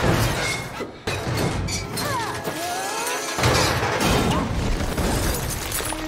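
A film fight-scene sound mix: loud crashing and smashing effects and scuffling, over the film score, with a few short gliding cries or squeals near the middle.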